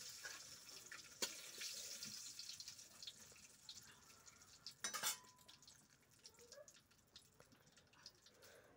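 Bay leaves and a pinch of sugar sizzling faintly in hot mustard oil in a wok. The sizzle is strongest in the first few seconds and then fades. Two sharp utensil knocks come about a second in and about five seconds in.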